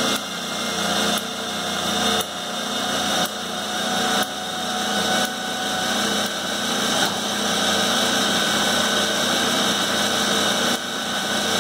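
Clausing 5914 lathe running, its motor and Reeves variable-speed belt drive giving a steady mechanical hum. The loudness swells and dips suddenly about once a second as hydraulic pressure is pumped in and the drive shifts toward a higher speed.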